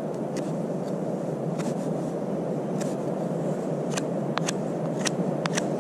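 Knife carving a piece of wood by hand: irregular sharp clicks of the blade biting and taking shavings, coming faster in the last two seconds, over a steady low rushing noise.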